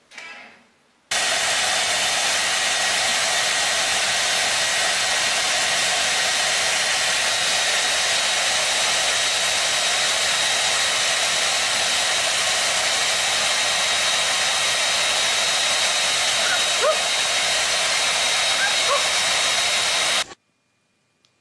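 Hand-held hair dryer running at a steady pitch, a rushing blow with a thin motor whine. It switches on about a second in and cuts off abruptly near the end.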